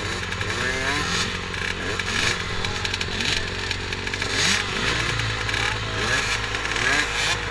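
Several youth motocross bikes idling together on a start line, riders blipping their throttles again and again so that short rising revs overlap a steady idle.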